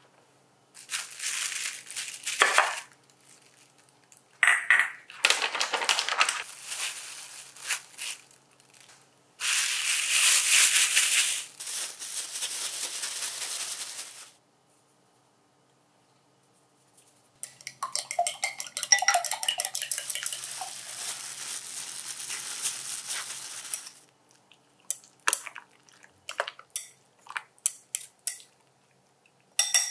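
Food-prep sounds: stretches of rustling from a plastic pouch of protein powder, then a metal utensil beating eggs in a glass bowl in a fast run of clinks, followed by a few separate clinks against the bowl near the end.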